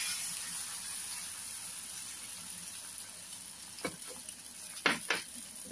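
Beaten egg sizzling as it is poured over potato strips frying in a hot metal tray; the sizzle is strongest at first and slowly dies down. A few short clicks sound near the end.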